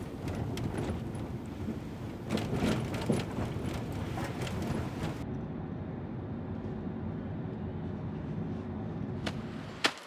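Steady low rumble of a vehicle running. A cluster of clicks and knocks comes about two to three seconds in, and a sharp click near the end.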